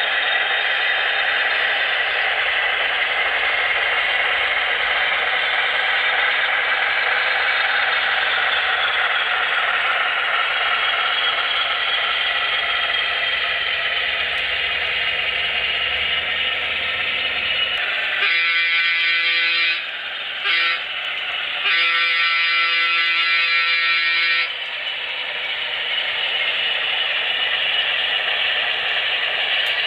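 Sound system of HO-scale Broadway Limited Pennsylvania Railroad Centipede diesel locomotives: a steady diesel engine sound played through small onboard speakers, mixed with the running noise of the models and train. About 18 seconds in the locomotive horn blows three times, a long blast, a very short one, then a longer one that cuts off near the end.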